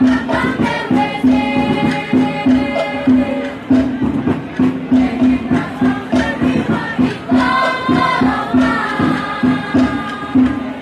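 Maengket song: a group of voices singing together in unison over a steady drum beat of about two strokes a second.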